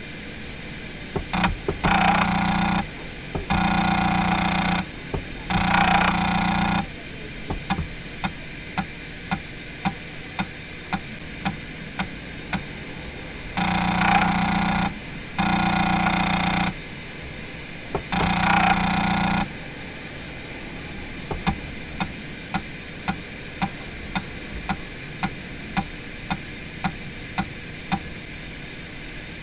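Floppy disk drive head stepping. There are six buzzing bursts of a second or so as the head seeks rapidly across many tracks, and between them single clicks about two a second as it steps one track at a time, over a steady background hum.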